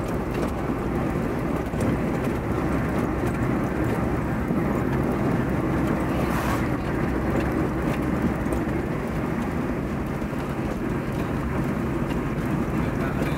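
Steady road and wind noise from a vehicle driving on a paved road. About six seconds in there is a brief whoosh as an oncoming jeepney passes close by.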